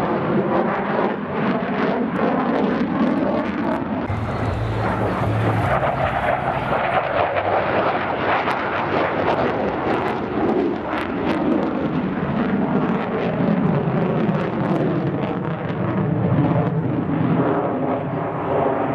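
F-35A fighter's single Pratt & Whitney F135 jet engine running overhead: a steady loud jet roar with crackling, its tone wavering as the aircraft moves across the sky.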